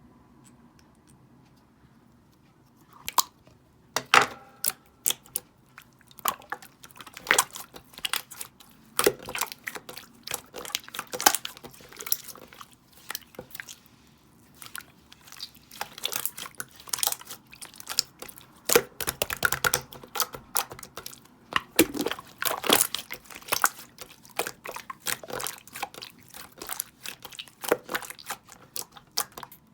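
Slime being squished, pressed and poked by hand: an irregular, rapid run of wet clicks and small pops that starts about three seconds in.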